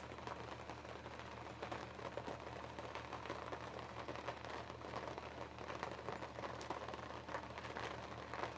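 Light rain pattering: many faint, irregular small ticks over a steady low hum.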